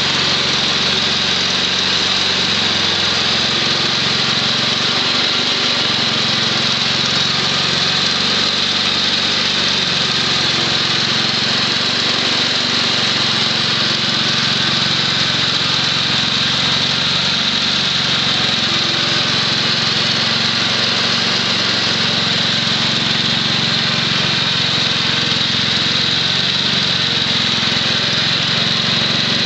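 6 HP Tecumseh H-60 single-cylinder engine of a 1967 Wheel Horse Lawn Ranger running steadily, powering a 32-inch snowthrower through shallow snow, with a steady hiss over the engine note.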